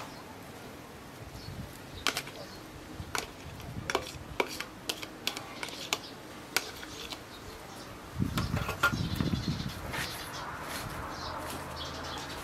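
A metal fork tapping and scraping soft white cheese into a stainless steel bowl of chopped herbs: a string of sharp clicks and ticks, then a patch of louder, dull knocks about eight seconds in.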